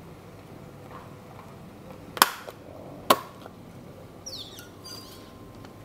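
Hand-held disc-bound planner hole punch snapping shut twice, two sharp clicks about a second apart, as it cuts the edge of a plastic pocket folder. A brief light rustle of the plastic and paper follows near the end.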